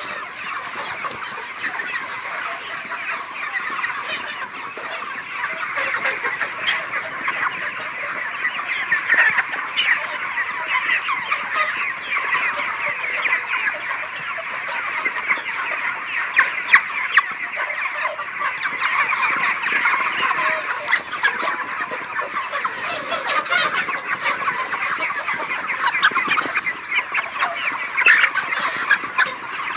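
A flock of desi chickens calling all at once, many short clucks and cheeps overlapping into a steady chatter, with a few sharp clicks.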